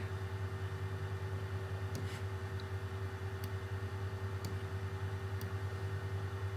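Steady electrical mains hum with a slightly pulsing low drone, and a few faint clicks scattered through it.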